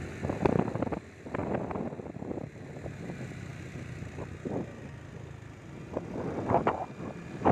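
Motorbike running while riding, a steady low rumble with uneven louder gusts.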